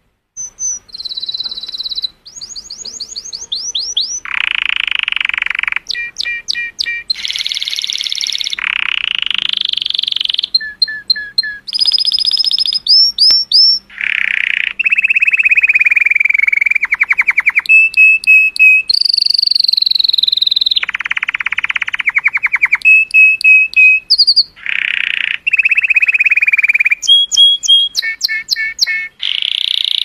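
Domestic colour canary singing a long, loud song of phrase after phrase, each a second or two long: fast rolling trills, rapid strings of repeated notes, and rising and falling whistled glides.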